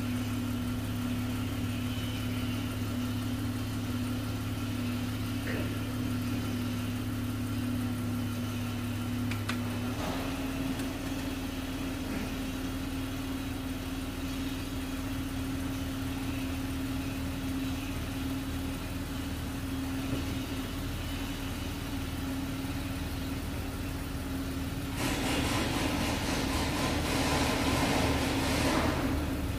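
Chrysler 300C engine idling steadily, its hum changing about a third of the way in. A loud hiss joins for the last few seconds.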